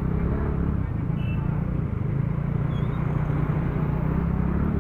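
Motor scooter being ridden, its engine and road noise running steadily, with traffic around.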